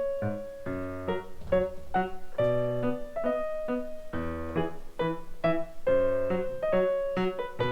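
Background piano music: a light tune of short, evenly paced notes over held lower notes.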